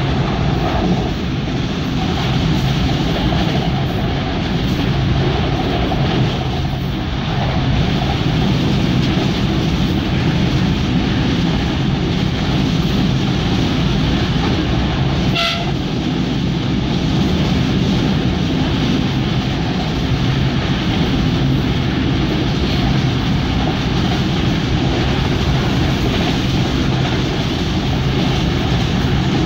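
A ZM passenger train running at speed, heard from inside the carriage: a steady, loud rumble of wheels on the rails. There is one brief sharp click about halfway.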